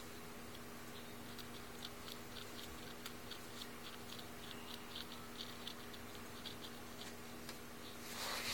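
Faint, irregular little scratching ticks of a feather quill being twirled against a child's ear and hair, over a low steady electrical hum. A louder rustle builds near the end.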